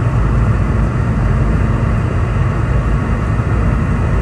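Steady cabin noise inside a Boeing 717 in flight: a loud, even rush of airflow over the low drone of its two rear-mounted Rolls-Royce BR715 turbofans.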